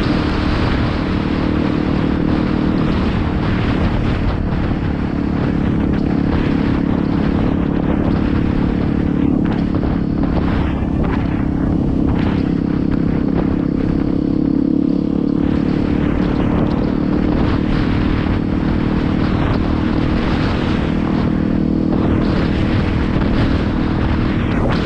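Yamaha WR250R's single-cylinder four-stroke engine running steadily at cruising speed, with an even rush of wind noise over it.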